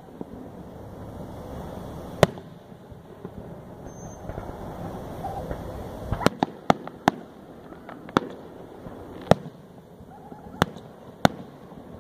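Aerial fireworks shells bursting overhead: about nine sharp bangs, one about two seconds in, then four in quick succession about six seconds in, followed by single bangs spaced about a second apart.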